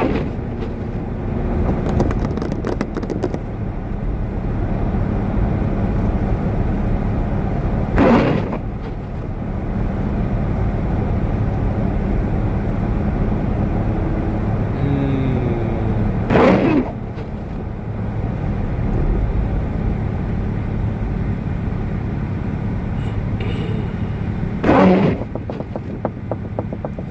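Steady low rumble of a car's engine and road noise while driving, with a short louder burst of sound about every eight seconds.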